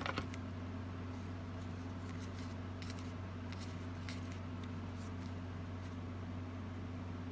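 Soft, faint rustling of ribbon and paper as they are handled and pressed onto a card, over a steady low hum. A single sharp click at the very start is the loudest sound.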